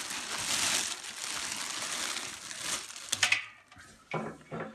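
Clear plastic wrapping crinkling as it is pulled off a coil of flexible ducting, a continuous rustle for about three seconds, then a few short, sharper rustles near the end.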